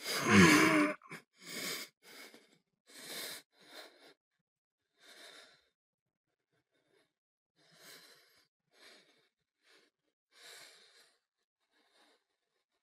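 A man's voice lets out a loud, strained groan, then he breathes heavily. The ragged breaths grow fainter and further apart.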